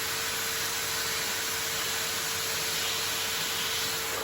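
Numatic TEM390a industrial vacuum extractor running in blower mode: a steady rush of air with a constant motor whine. The blower connection leaks air, which the owner puts down to a factory fault.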